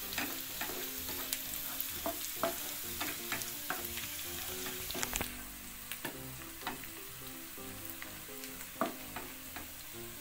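Chopped shallots, garlic and bird's-eye chilies sizzling in hot oil in a frying pan, with a spatula clicking and scraping against the pan as they are stirred. The sizzle softens about halfway through.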